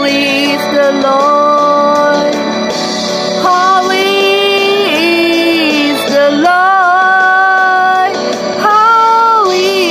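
Music: a woman singing a slow song in long held notes over instrumental backing.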